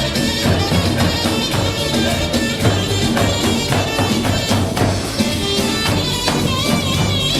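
Upbeat folk-style dance music with a steady beat and jingling percussion.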